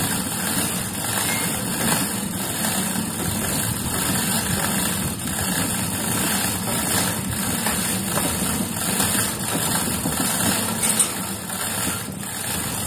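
An engine idling steadily, a continuous low rumble without revving.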